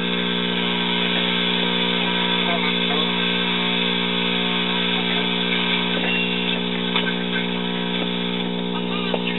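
Hallicrafters S120 tube shortwave receiver's speaker giving a steady buzzing hum with many overtones, the sign of a bad power-supply filter capacitor, with a weak shortwave station faintly audible beneath it.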